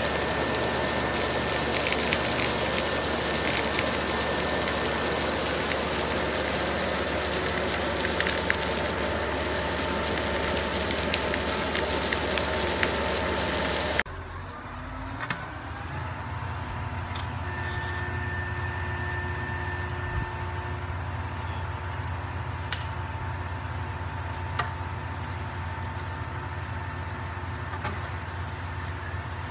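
Stone slinger truck's conveyor running and throwing drain rock: a loud, dense rushing noise over the truck's engine hum, which cuts off suddenly about 14 seconds in. After that, a machine engine runs steadily in the background, with a few scattered clicks.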